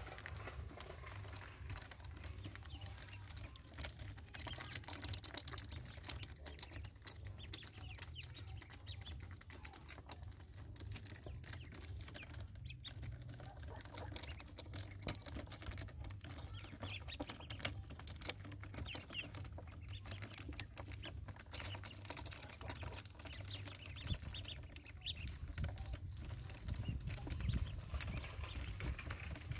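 Ducklings peeping now and then while they feed, with a busy patter of quick clicks from bills pecking and dabbling at the dish and small feet on the plastic mesh floor.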